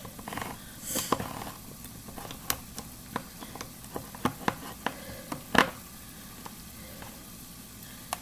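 Sausage sauce sizzling in a pan on the stove, with a dozen or so sharp, irregular clicks and clacks from a hand-held can opener being gripped and worked onto a can; the loudest clacks come about a second in and just past halfway.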